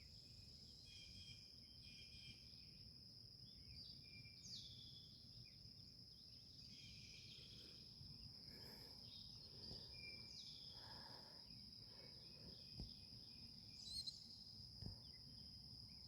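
Outdoor ambience: a steady high-pitched insect drone, with scattered bird chirps and a few calls that slide down in pitch.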